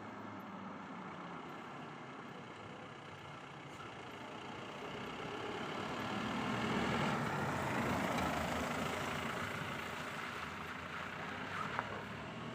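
Road vehicle noise that swells to a peak about seven to eight seconds in, then fades again.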